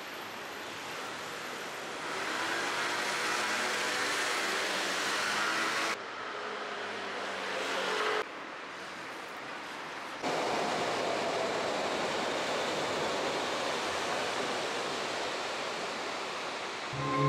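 City street ambience: a steady wash of road traffic noise that changes level abruptly several times.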